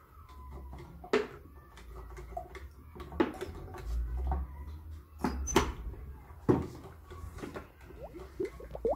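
Plastic bottles and cups handled on a tabletop while liquids are poured: a few sharp knocks and taps as containers are set down or bumped, then a cluster of short rising squeaks near the end.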